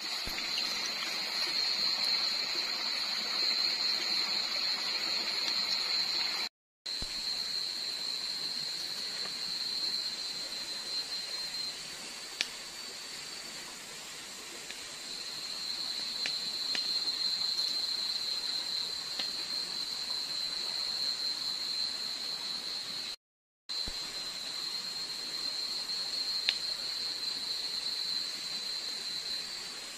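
Campfire of thin sticks burning, giving a few single sharp crackles, under a steady high-pitched drone that carries on throughout. The sound cuts out briefly twice.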